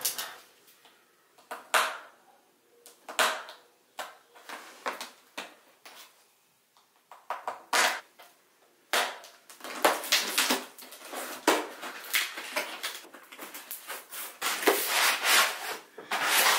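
Cardboard box being opened by hand: scattered scrapes and clicks as a tool is worked along the packing tape, then from about nine seconds in a longer stretch of cardboard and molded pulp packaging rubbing and scraping as the box is pulled open and the insert slid out, loudest near the end.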